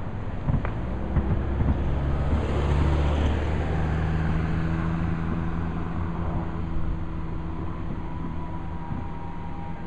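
Fireworks: a few sharp cracks in the first two seconds, then a long rolling rumble of booms that peaks a few seconds in and slowly fades. A steady low droning tone runs under it for several seconds.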